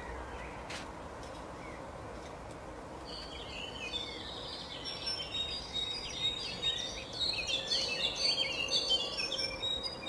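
European goldfinches twittering: a rapid run of short high chirps and quick glides. It begins about three seconds in and grows louder towards the end, over a steady low background noise.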